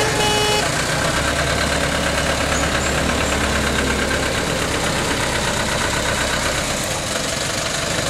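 Engine of a small open-sided tourist bus idling steadily with a low hum. A tune of stepped, held tones cuts off about half a second in.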